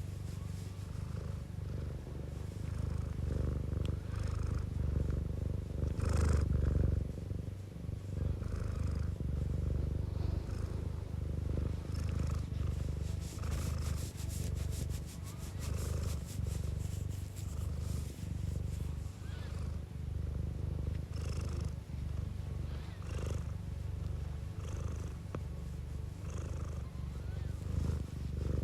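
Domestic cat purring steadily, a continuous rapid low rumble, with soft breath noise on each breath.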